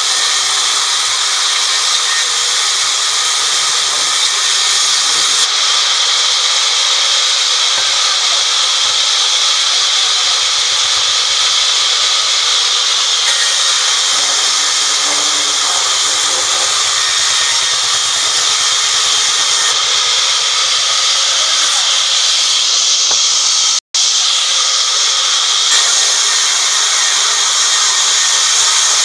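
Sawmill band saw blade running through a timber board, a loud, steady, high hissing whine of the blade cutting wood. The sound drops out for a split second about three-quarters of the way through.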